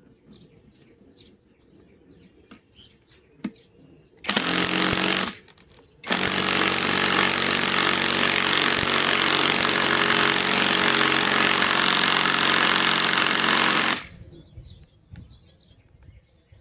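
Bauer compact cordless impact wrench, run on a Flex battery through an adapter, hammering as it drives a fastener in: a short burst about four seconds in, then a long unbroken run of about eight seconds that stops abruptly.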